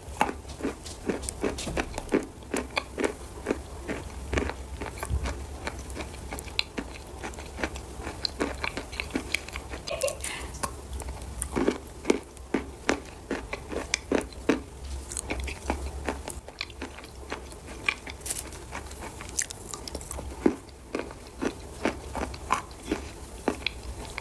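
Edible red chalk being bitten and chewed close to the microphone: a dense run of crisp crunches, over a steady low hum.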